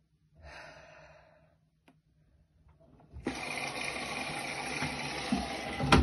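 Bosch front-loading washing machine taking in water. A short rush of water comes about half a second in, then from about three seconds in a steady rush of water into the drum, with a thump near the end.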